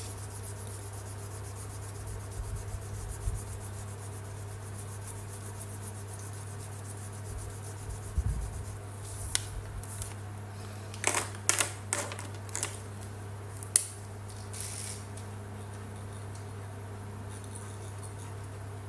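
Felt-tip marker scratching softly on paper, then a cluster of sharp clicks and short rustles in the middle as the paper sheet is shifted and a marker is swapped and uncapped, over a steady low hum.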